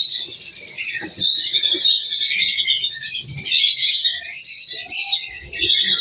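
Many lovebirds chirping and twittering together in a dense, unbroken high-pitched chatter, with a few faint knocks from a small wire cage being handled.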